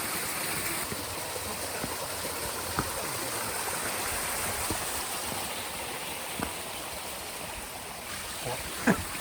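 Mountain stream rushing steadily, with a few short sharp knocks, the loudest near the end.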